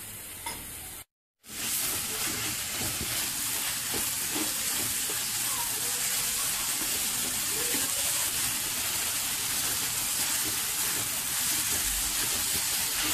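Dried kachki fish with onions and green chillies sizzling in a pan as a spatula stirs it, the little water just added cooking off. There is a brief dropout about a second in, after which the sizzle is louder and steady.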